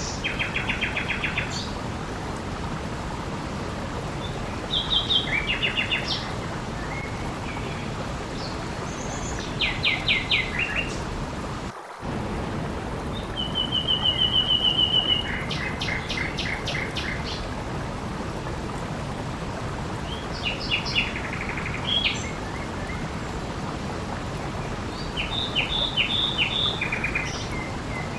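Steady rush of water with a songbird singing short phrases of quick repeated notes every few seconds. A brief dropout cuts the sound for a moment just before the middle.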